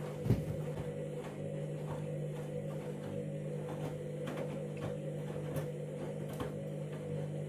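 Candy washing machine running with a steady motor hum, the drum turning and giving off light knocks and ticks, with one louder thump just after the start.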